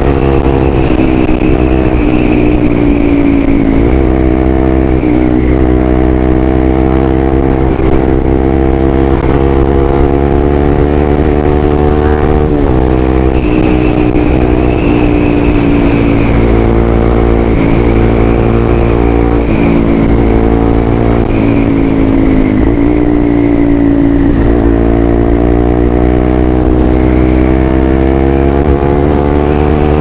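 Bajaj Rouser 200NS single-cylinder engine running through an aftermarket Villain muffler while the bike is ridden. Engine speed climbs, falls back sharply and climbs again about three times, as the bike pulls through the gears.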